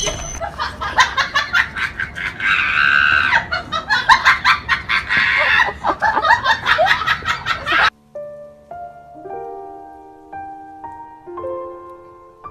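Music with rapid, pulsing vocal sounds like laughter, cut off suddenly about eight seconds in. A soft piano melody of single held notes follows.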